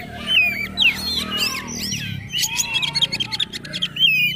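Oriental magpie-robin (kacer) singing a rapid, varied song of whistled notes that slide up and down, mixed with quick clicking chatter, without pause.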